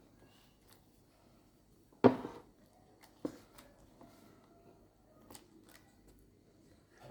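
Handling sounds in a small room: a sharp knock about two seconds in, a lighter knock about a second later, then a few faint clicks and rustles.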